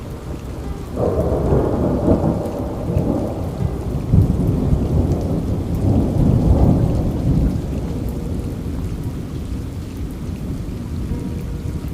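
Rolling thunder over steady rain. A deep rumble builds about a second in, swells through the middle and dies away over the last few seconds, while the rain hiss keeps on.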